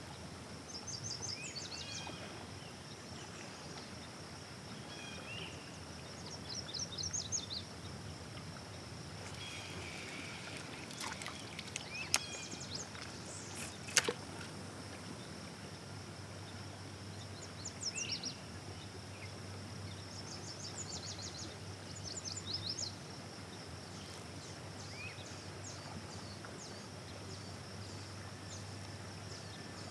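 Outdoor river ambience: birds singing in short, rapid high trills that recur several times, over a steady high insect buzz and a low steady hum. Two sharp clicks come about halfway through.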